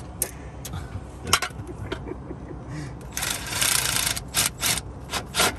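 Metal hand tools and sockets clinking and scraping on engine bolts while the engine is put back together, with about a second of dense rattling noise about three seconds in and a quick run of sharp clinks near the end.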